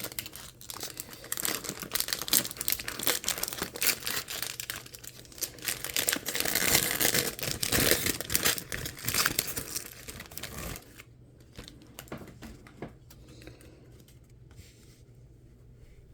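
Foil wrapper of a trading-card pack being torn open and crinkled, a dense crackle for about eleven seconds that then drops to faint handling sounds.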